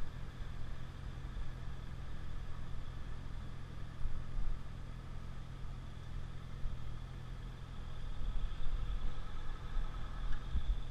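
Sport motorcycle engine running steadily at low road speed, with gusty wind rumble on the helmet microphone growing louder near the end.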